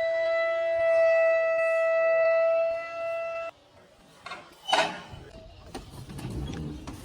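A single musical note held steady for about three and a half seconds, then cut off suddenly. After it comes quieter room noise, with one sharp knock or clatter about a second later.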